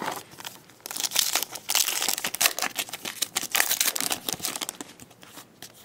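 Foil trading-card pack wrapper crinkling and being torn open by hand, a dense crackle from about a second in that fades out after about four and a half seconds.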